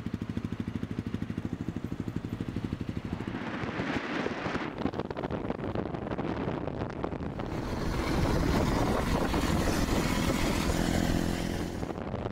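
Honda CBR250R's single-cylinder engine idling with an even, fast pulse, then the bike running along under power, louder in the second half, with wind on the microphone.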